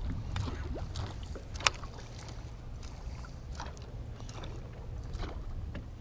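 Small waves lapping and slapping against a fishing boat's hull, over a low steady wind rumble on the microphone, with one sharp click about a second and a half in.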